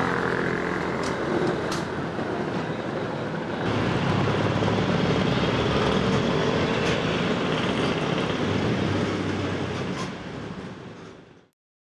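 A train running on the rails with a steady rumble and a few faint clicks, fading out near the end. Before it, a steady engine hum cuts off abruptly about four seconds in.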